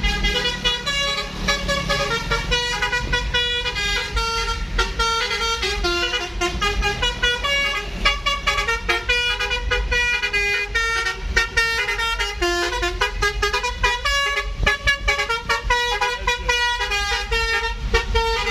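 Basuri telolet multi-tone bus horn playing a quick melody of short notes, one pitch after another with no pause, over a low steady rumble.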